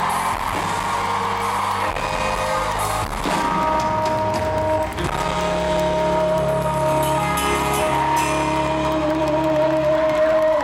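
Live rock band with acoustic and electric guitars, bass and drums playing the closing bars of a song, settling into a long sustained final chord about halfway through.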